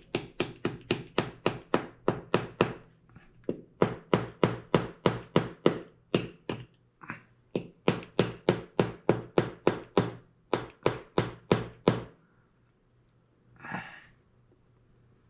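Small wooden-handled hammer tapping a bent length of aluminum wire down into a clay sculpture to anchor the arm: quick light blows, about four or five a second, in several runs with brief pauses, stopping about twelve seconds in.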